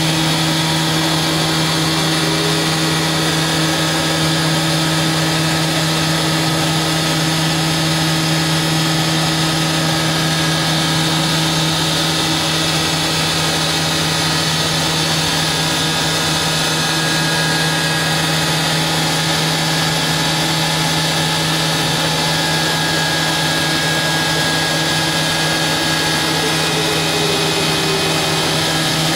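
Fadal CNC vertical machining center running steadily: an unbroken machine hum with a strong constant low tone and fainter steady whines above it.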